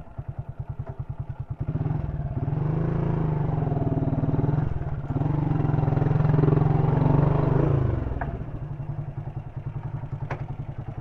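Honda CG 125 Titan's single-cylinder four-stroke engine idling with an even thump. From about two seconds in it is held at higher revs and runs louder, then drops back to idle near eight seconds. A single sharp click comes near the end.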